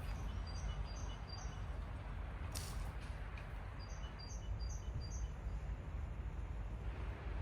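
A small bird calls in two runs of four short, high, evenly spaced notes, one run near the start and another about four seconds in. A steady low rumble lies underneath, with a single sharp click in the middle.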